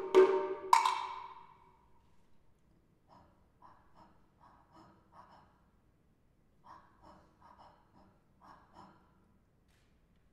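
Two sharp strikes of a pak-koan, a Taiwanese wooden clapper, right at the start and a little under a second in, ringing out over about a second. After that comes a run of faint, soft, breath-like pulses, about two a second.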